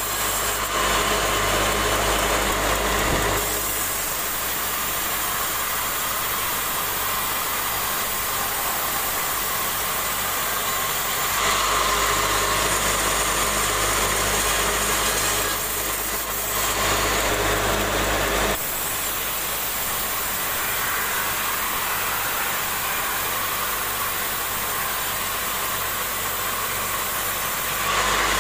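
Band sawmill running, its blade cutting lengthwise through a large log with a steady mechanical drone. The deep hum underneath grows weaker or stronger abruptly a few times.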